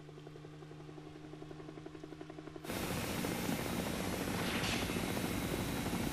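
Helicopter rotor thudding in a fast, even rhythm over a steady engine hum, growing louder; a bit under three seconds in it cuts to a much louder rush of rotor noise and wind.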